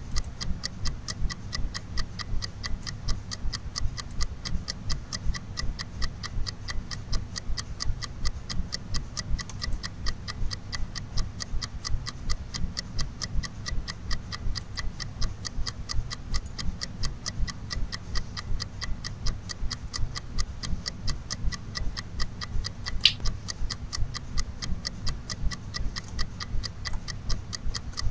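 Steady, evenly spaced ticking over a low hum, with one brief high rising chirp late on.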